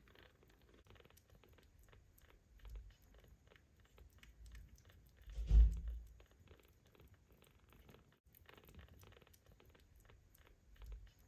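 Ginger kittens heard close up: scattered small soft clicks and rustles, with one loud low thump a little past halfway.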